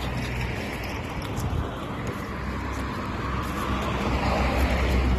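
Steady low rumble and hiss of road traffic, growing a little louder in the second half.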